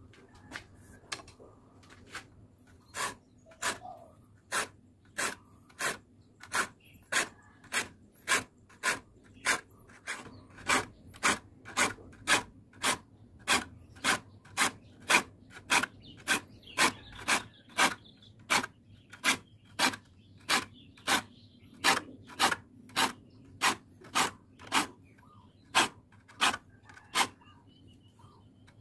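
Hand file sharpening the teeth of a crosscut handsaw, a steady run of rasping strokes at about one and a half a second. The strokes are faint and spaced out at first and grow louder over the first ten seconds or so.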